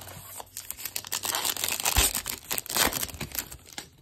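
A trading card pack's wrapper being torn open and crinkled in the hands, a dense run of crackles with a dull knock about halfway through.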